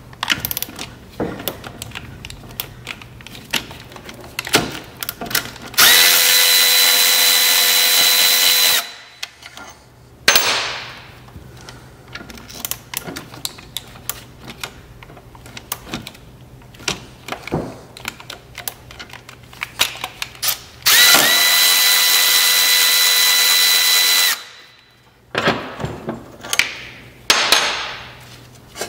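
A cordless power tool runs the bolts of a motorcycle's front brake caliper twice, each run a steady high whine of about three seconds, one about six seconds in and one about twenty-one seconds in. Between the runs come scattered clicks and clinks of metal parts being handled.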